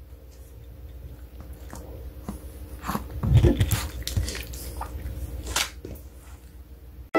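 A Pomeranian's muzzle and fur brushing and bumping against the phone's microphone, heard as close soft rustles, clicks and low thumps that are loudest about three seconds in.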